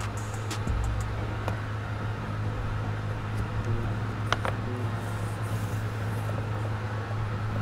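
Plastic trim tool clicking against a speedometer's metal bezel ring as it is pried loose: a few light clicks near the start and one sharper click about four seconds in, over a steady low hum.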